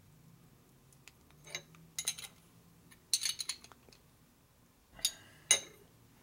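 Small steel transmission parts, shims and a shift fork, clinking and clicking together in the hands as the shims are fitted. There are several short clusters of sharp metallic clinks, the loudest near the end, over a faint steady low hum.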